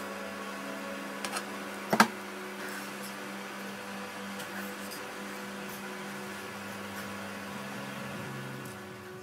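Induction cooktop humming steadily with its cooling fan under a pan of semolina kesari bubbling as it is stirred. A spatula clicks against the pan a few times, loudest about two seconds in.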